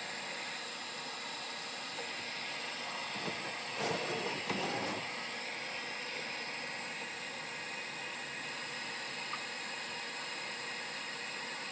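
Hand-held hot-air blower running on high, a steady hiss of air, blowing on built-up ice to defrost an RV refrigerator. A brief louder rustle comes about four seconds in.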